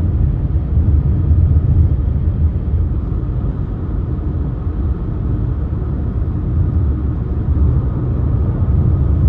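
Steady low rumble of road and engine noise inside a car cruising on a motorway.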